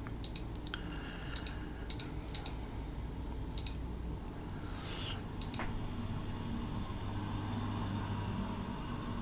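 Scattered short, sharp clicks from operating a computer while stepping back through in-page search matches, over a faint steady low hum.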